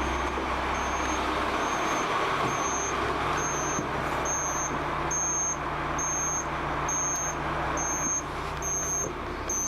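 A vehicle running with a steady hum and hiss. Over it, the hazard flashers' indicator gives a short, high electronic tick that repeats about one and a half times a second.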